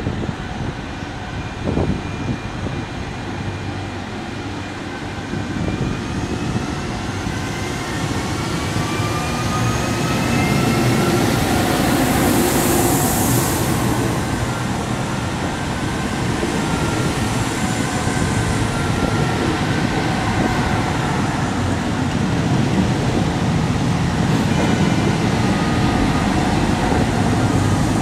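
SNCF Régiolis TER multiple unit pulling out of the platform and passing close by. Its drive whine rises in pitch as it picks up speed over a growing wheel rumble, with a short sharp hiss of air a little before halfway.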